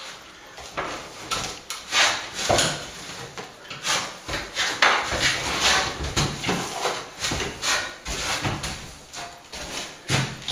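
Plastering trowel scraping sand-and-plaster mix along a wall chase in repeated uneven strokes, about one to two a second.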